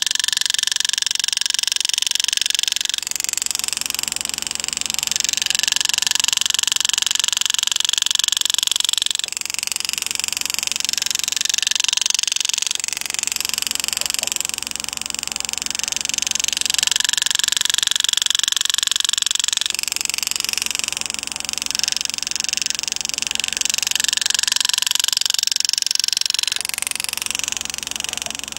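Pneumatic power-assist engraving handpiece buzzing at high pitch as the graver cuts a border pattern into a coin. It comes in runs of a few seconds, its pitch and loudness shifting from one cut to the next.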